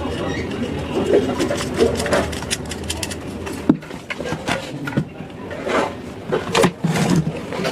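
Irregular clicks, taps and scraping of small metal hardware being handled as amplifier ICs are refitted to their heat sink.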